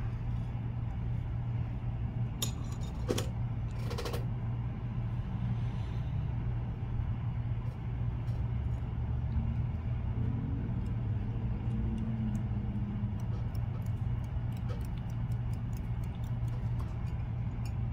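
Steady low background hum under scattered light clicks and ticks from hands handling fly-tying materials and tools at a vise, with a few sharper clicks a few seconds in.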